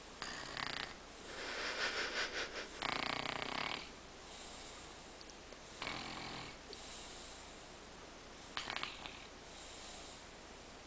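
A sleeping man snoring: a few irregular breaths a couple of seconds apart, the strongest two close together about two to four seconds in, one with a fluttering rattle and the next pitched and droning, then shorter snores around six and nine seconds in.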